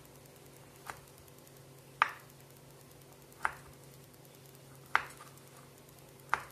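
Knife chopping kavurma (cooked braised meat) on a cutting board to break it into pieces: five separate sharp strokes, one every second or so.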